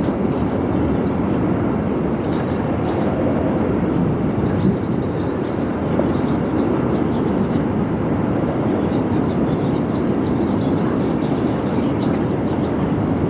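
Strong, steady wind rushing over a camcorder microphone outdoors in a storm, with faint high chirps here and there.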